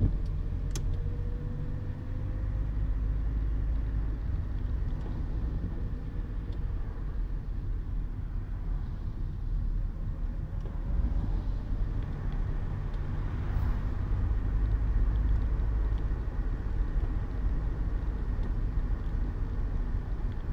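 Citroën BX 14 RE's four-cylinder petrol engine running at low revs, with tyre and road noise from a wet road, heard inside the cabin while driving slowly. It makes a steady low rumble, and the engine note rises slightly in the first couple of seconds.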